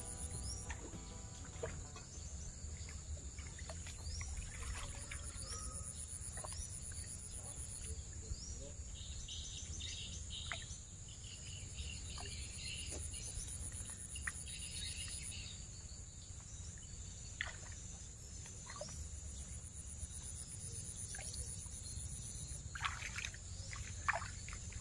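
Outdoor ambience of insects and birds: a steady high-pitched insect drone, with a faster pulsing insect trill that comes and goes, and short rising bird chirps every second or two over a low steady rumble. A few sharp knocks come near the end.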